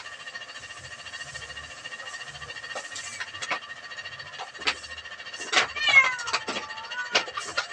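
A cat meows once, about six seconds in: a long drawn-out call that falls in pitch and then wavers. Around it are scattered crackles and rustles of dry straw being thrown onto a smouldering fire.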